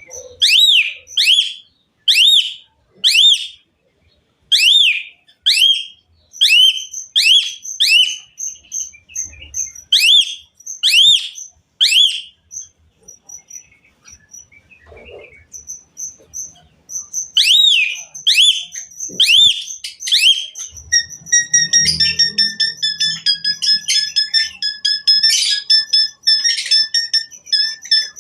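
Jalak suren (pied starling) singing: loud, clear whistles that sweep downward, repeated about twice a second in runs, with a short pause in the middle. In the last several seconds the song turns into a rapid, varied chattering phrase with some held notes.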